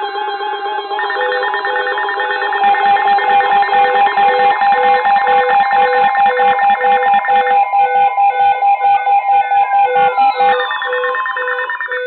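Several emergency alert receivers sounding their alarm tones at once: overlapping steady electronic tones, joined about three seconds in by a rapid pulsing beep. Near the end, falling siren-like sweeps come in.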